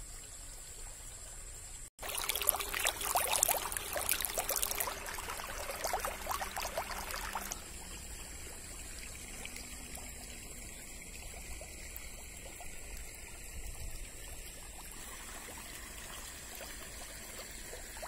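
Shallow stream water running and trickling over stones and through grass. About two seconds in, after a brief break, it turns louder and splashier for about five seconds, then settles to a steady, quieter trickle.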